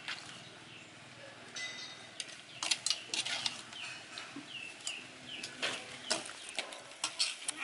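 Scattered sharp clicks and knocks at an irregular pace, with faint short chirps of birds in the background.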